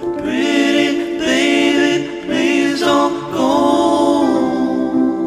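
Soundtrack song: voices singing in harmony without instruments, in four long held phrases.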